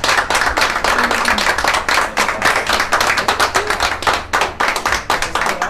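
A group of people clapping their hands in quick, overlapping claps that keep up steadily.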